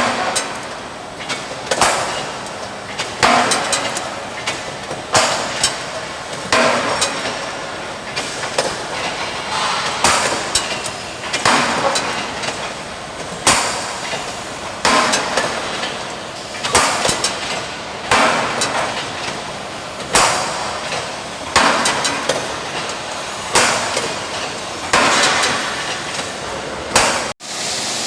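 CNC punching machine for steel sections working through a run of holes: a sharp metallic clank of the punch about every one and a half to two seconds, with steady machine noise between strikes. The sound cuts off abruptly near the end.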